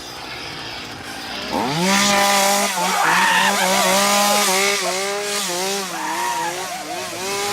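Chainsaw engine starting up about a second and a half in, its pitch climbing fast to high revs, then running hard with brief dips as the throttle is eased and opened again.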